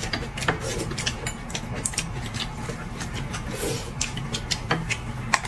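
Eating sounds: lettuce wraps being bitten and chewed, a run of irregular crisp crunches and wet mouth clicks.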